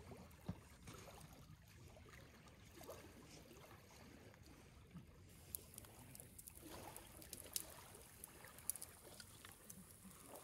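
Faint small waves lapping on a pebble lakeshore. About five seconds in this gives way to a wood fire in a camp fire stand crackling, with sharp, irregular pops.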